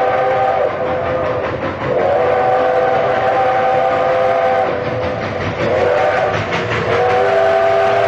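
Steam locomotive chime whistle blowing a chord of several notes in repeated blasts, each sliding up in pitch as it opens. One blast ends just after the start, a long blast of about two and a half seconds follows, then a short one, and a last blast begins near the end. Under the whistle there is a fast rhythmic beat of the running train.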